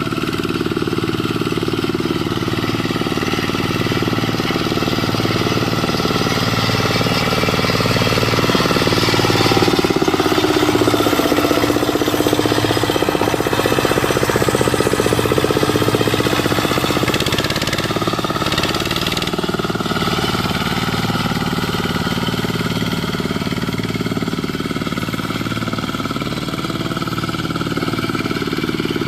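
Dongfeng single-cylinder diesel engine on a Quick Impala two-wheel hand tractor, running steadily while working a rice paddy. It grows a little louder and higher for several seconds in the middle.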